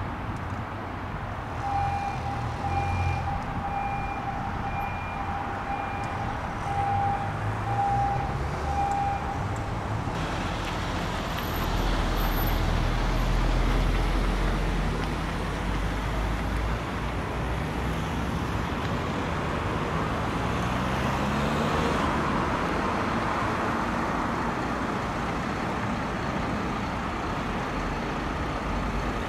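Diesel engine of a Volvo FMX fire truck running and pulling away, with a deep low rumble around the middle and then rising in pitch as it speeds up. Over the first several seconds a high beep repeats about twice a second.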